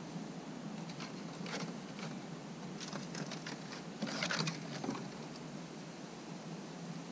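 Eastern gray squirrel's claws scratching on a wooden fence and concrete in short scrabbling bursts, the loudest about four seconds in. A steady low hum and hiss lies underneath.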